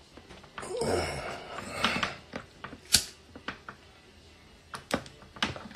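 A handheld lighter being struck to light a smoke: a scatter of sharp clicks, the loudest about three seconds in.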